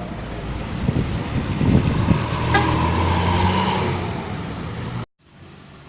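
A large bus driving past close by, its engine noise swelling to a peak about two to three seconds in and easing off, with one sharp click at the loudest point. The sound cuts off abruptly about five seconds in, leaving quieter road background.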